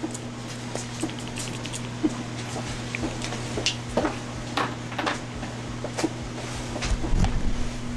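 Perfume bottles being handled: scattered light clicks and taps, over a steady low hum, with a dull thud about seven seconds in.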